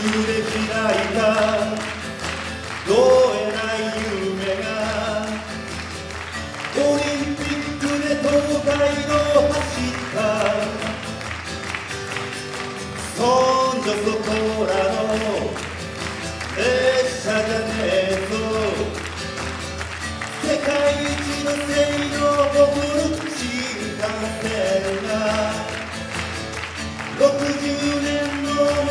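A man singing a Japanese song in phrases of a few seconds, accompanying himself on acoustic guitar.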